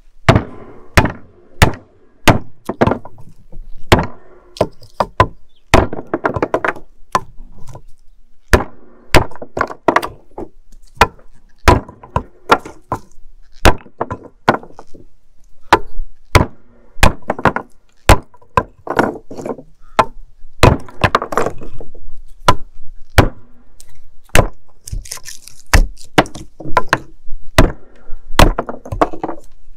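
Hatchet chopping chunks of apple-tree trunk wood on a hardwood chopping block: a long run of sharp chops, about one to two a second at an uneven pace, as the wood splits into smaller pieces.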